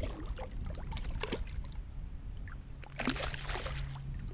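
A hooked fish thrashing and splashing at the water's surface beside a kayak, with short splashes about a second in and again about three seconds in. Wind rumbles on the microphone underneath.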